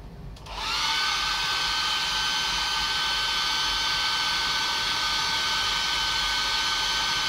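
Handheld hair dryer switched on about half a second in. Its whine rises briefly, then it runs at a steady pitch, blowing warm air to dry a wet puppy's coat.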